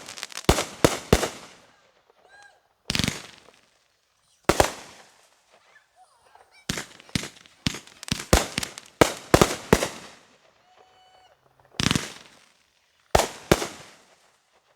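A 500-gram, 25-shot consumer fireworks cake firing: sharp bangs of shots going off in irregular groups, with a quick run of them in the middle and short pauses between volleys.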